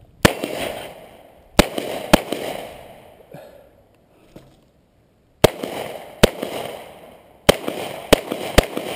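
A string of about nine .38 Super pistol shots fired at an irregular pace, each with a short echoing tail. There is a pause of about two seconds midway, then a quicker run of shots near the end.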